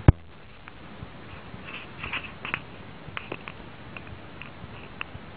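A sharp click just at the start, then scattered light clicks and short rustling scrapes of a cat scrabbling and pouncing on a rug and a paper box, busiest about two seconds in.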